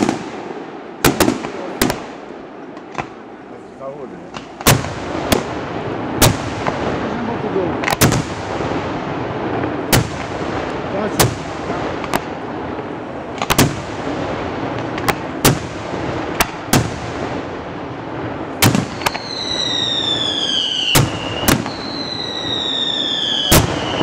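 Daytime aerial fireworks: a steady series of sharp bangs, roughly one every second, with two falling whistles near the end.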